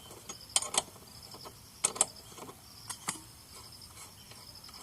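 Sharp metallic clicks of a wrench working the rear wheel axle nut of a Yamaha Fazer V2 loose, in pairs about once a second. Crickets chirp steadily behind.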